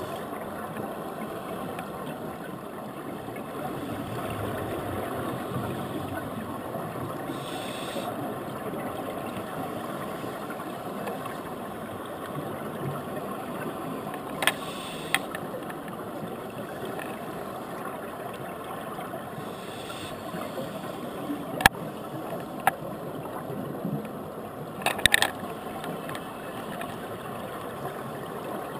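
Underwater ambience picked up through a dive camera's housing: a steady rushing hiss of the sea, broken by several sharp clicks in the second half, the loudest about three-quarters of the way through.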